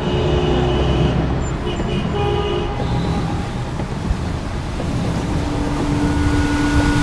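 Steady low rumble of road traffic, with a few faint held tones over it.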